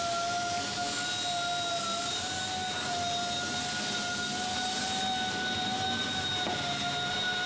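A motor running steadily, a high whine that wavers slightly in pitch over a hiss.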